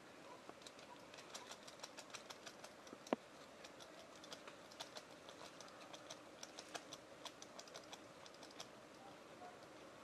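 Faint, irregular dry crackling and clicking of leaf litter and twigs, a few clicks a second, with one sharper snap about three seconds in.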